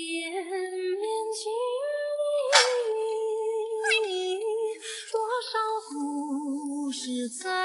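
Background music: a woman singing a slow melody in long held notes that step from pitch to pitch, with a single sharp knock about two and a half seconds in.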